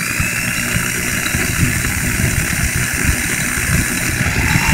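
Corded electric drill running steadily, spinning a carburetor jet held in its chuck while a fine guitar-string wire is worked through the jet to clear it. The motor whine rises a little near the start as it comes up to speed.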